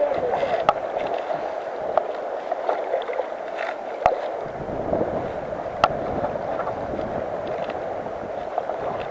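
Fast river current rushing steadily past, with a few light knocks.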